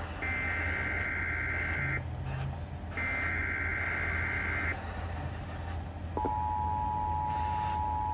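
Emergency Alert System SAME header: two bursts of warbling digital data tones, each under two seconds and a second apart, end the header. About six seconds in the steady two-tone EAS attention signal starts and holds, over a low steady hum.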